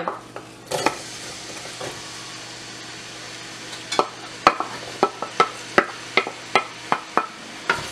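Chopped onion dropped into hot cooking oil in a pot, sizzling steadily. From about halfway through, a wooden spoon taps repeatedly against the bowl and pot rim as the last of the onion is scraped in.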